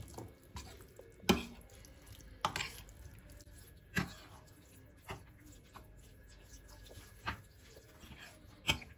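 A metal spoon stirring a thick, moist lentil and bulgur mix with chopped walnuts in a glass baking dish. Soft scraping is broken by about six sharp clicks of the spoon against the glass, a second or more apart.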